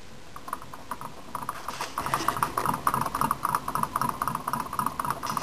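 Homemade alcohol-fired Stirling engine running, its crank, piston and linkage clicking rapidly and evenly, several ticks a second. The ticking is faint at first and grows louder about two seconds in as the engine comes up to speed after being restarted.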